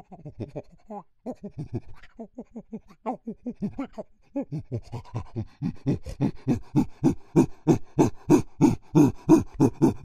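Chimpanzee pant-hoot building up: a run of rhythmic panting calls, about four a second, growing louder from about halfway through.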